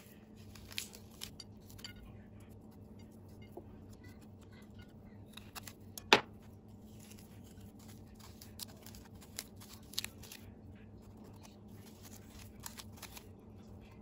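Metal dolma corer scraping out the hard core of a peeled raw quince: faint scrapes and small clicks, with one louder click about six seconds in.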